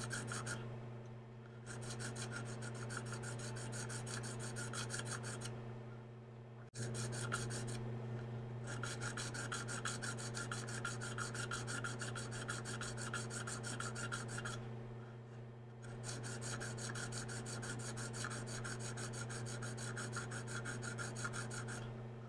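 KME tapered diamond rod rasping in the serrations of a knife edge, with light, quick, even strokes. It comes in several runs of strokes with short pauses between them as the rod moves from one serration to the next.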